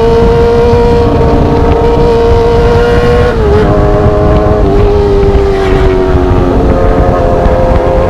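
Sport motorcycle engine running at high revs on a loud aftermarket exhaust, heard from the bike while riding, with wind rumble on the microphone. The engine note drops twice, about three and a half and four and a half seconds in, sags, then rises again about six and a half seconds in.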